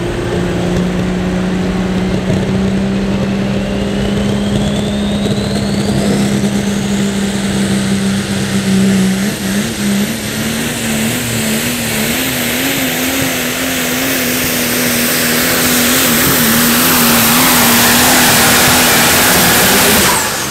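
Super stock diesel pulling truck run at full throttle: a steady engine note under a turbocharger whine that climbs in pitch over several seconds. From about halfway the engine note wavers, the sound grows louder, and it cuts off suddenly near the end.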